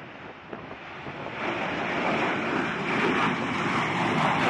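B-1B bomber's four afterburning GE F101 turbofan engines on takeoff: a steady jet roar growing louder, with a clear step up about a second and a half in.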